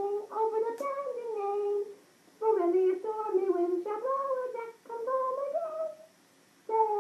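A woman singing a wordless tune in held notes that step up and down, in short phrases with brief pauses about two seconds in and near the end.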